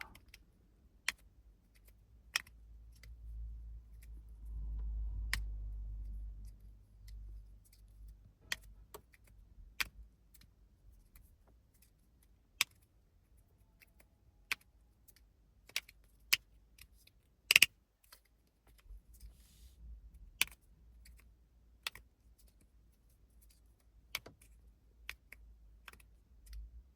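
Titanium fidget slider with Teflon plates being slid back and forth, its magnets snapping it into place with sharp, irregularly spaced clicks about every one to two seconds. A low rumble of handling comes a few seconds in.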